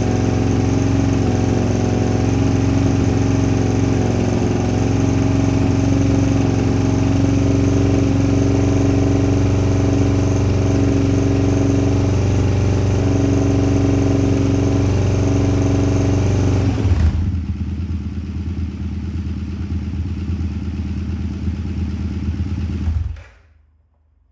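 A 1999 Excelsior-Henderson Super X V-twin motorcycle engine runs steadily at raised revs, held there to warm up and circulate freshly changed oil. About 17 seconds in, the revs drop back to a lower, quieter run. The engine is switched off near the end and dies away to silence.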